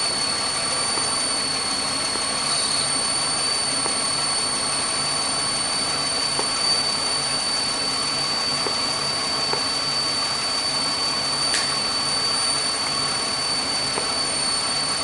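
2005 Chevrolet Impala engine idling steadily, with a constant hiss and a steady high whine over it. The hiss is the kind the mechanics go on to trace to a vacuum leak.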